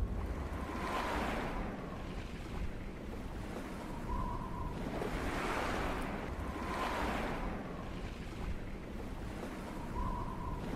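Rushing, wind-like noise that swells and fades about every second and a half, like slow surf, with a faint short tone on some of the swells.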